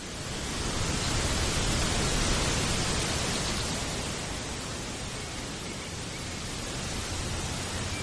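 A gust of wind rushing through the forest trees, swelling about a second in and slowly easing off, with a low rumble of wind on the microphone.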